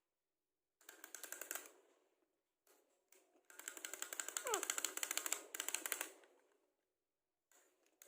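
Two bursts of rapid, clicking bird-like chatter, the second longer and with a falling whistle in its middle.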